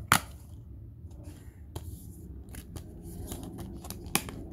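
Plastic Blu-ray case being handled: a sharp snap just after the start as the case is opened, scattered small plastic clicks, and another sharp click about four seconds in as the disc is pressed off its centre hub.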